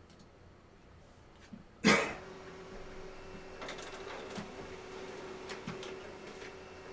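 A single short, loud sound about two seconds in, then a printer running: a steady hum with a faint high whine and soft clicks as it prints.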